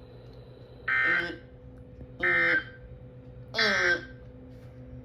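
Three short, harsh electronic data bursts about a second apart: the EAS/SAME digital end-of-message code, which closes the NOAA Weather Radio required weekly test broadcast.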